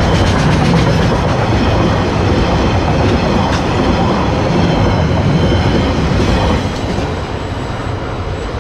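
Loaded log freight train rolling past, its wagons' wheels running over the rails. The noise drops off about two-thirds of the way through as the train moves away.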